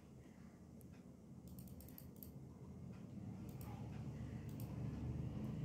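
Faint computer mouse clicks, scattered and irregular, with a quick cluster of several about two seconds in, as a date is picked from an on-screen calendar.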